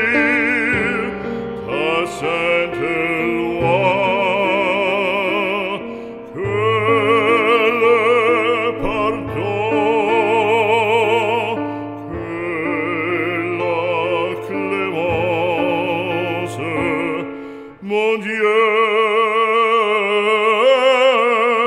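Operatic singing with a wide vibrato over sustained instrumental accompaniment, in phrases with short breaths between them.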